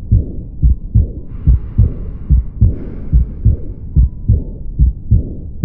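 Auscultation recording of heart sounds, a steady run of low thuds with a murmur between them. It illustrates mitral stenosis: the 'quail rhythm' of the heart sounds plus the opening snap of the mitral valve, followed by a diastolic murmur at the apex.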